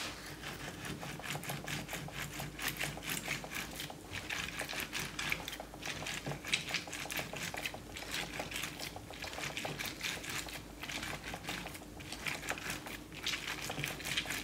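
Half an orange twisted back and forth on a ribbed ceramic citrus reamer: fast, scratchy grinding of the fruit's flesh and peel against the cone, in runs of strokes broken by short pauses.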